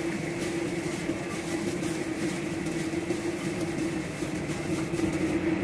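A steady hum runs throughout, with faint irregular soft sounds of raw chicken wings being mixed by hand with dry seasoning.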